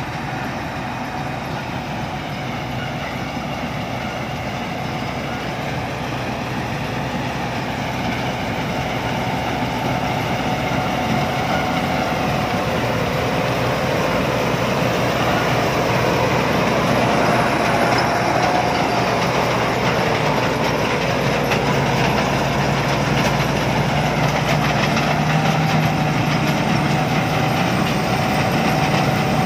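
Rice combine harvester running steadily as it harvests, its engine and threshing machinery making a continuous mechanical drone with a few steady tones, growing gradually louder.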